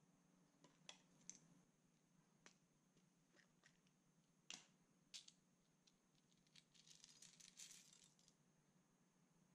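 Faint scattered clicks on a glass dish, then a quick patter of small plastic beads tipped onto the glass, lasting about two seconds, around seven seconds in.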